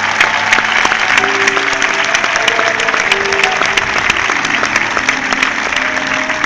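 Music, a slow melody of long held notes, over a dense, steady patter of many claps like applause.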